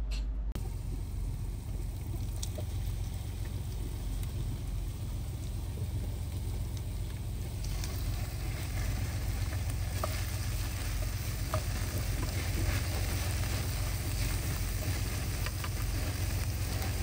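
Steady driving noise of a semi truck on the road: a low rumble with an even hiss over it, cutting in abruptly about half a second in.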